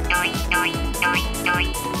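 Electronic background music with a steady fast drum beat and a short bright synth figure repeated about every half second.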